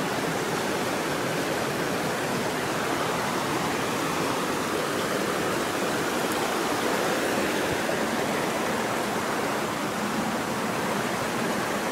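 Mountain stream rushing over rocks and small cascades, a steady, unbroken rush of water.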